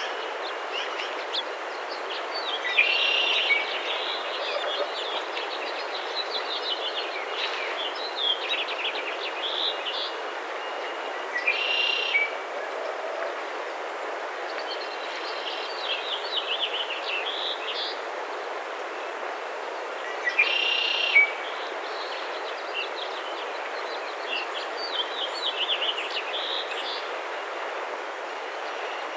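Songbirds singing in quick runs of short chirps, with three louder, buzzy phrases about three, twelve and twenty seconds in, over a steady rushing background noise.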